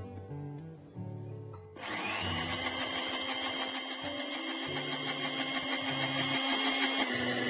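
Countertop blender switched on about two seconds in. Its motor whine rises quickly, then runs steady as it blends egg, salt, sugar and chopped garlic into mayonnaise. The pitch drops slightly near the end.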